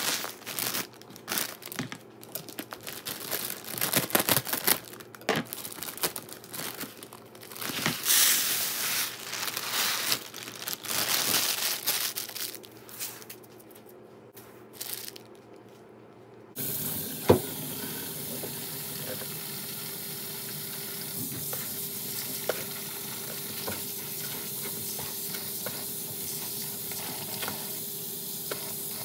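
A plastic bag of dry long-grain rice crinkling as the grains are tipped out and pour into a plastic tub, in irregular rustling bursts. About 16 seconds in, a kitchen tap comes on suddenly and runs steadily into the tub as the rice is rinsed, with a sharp knock just after it starts.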